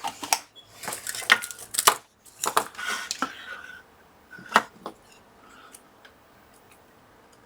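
Scattered small metallic clicks and taps from soldering the pins of a power switch with a soldering iron and solder, with a few brief faint hisses between them. The taps stop about five seconds in.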